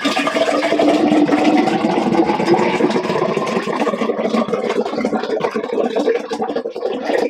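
Sikhye, the Korean sweet rice drink, pouring in a steady stream from an upturned plastic bottle into a tall glass, splashing as the glass fills.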